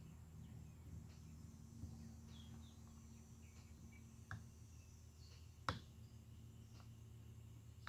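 Near-silent room tone with a low steady hum and a few faint, short clicks of small metal parts being handled, the sharpest about two-thirds of the way through. The clicks come from a piston wrist pin being worked into a piston and connecting rod.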